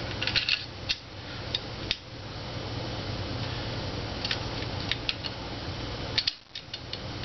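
Small metallic clicks and taps, scattered and irregular, as the trigger axis pin is worked through the trigger and receiver of an AK-pattern rifle, over a steady background hum.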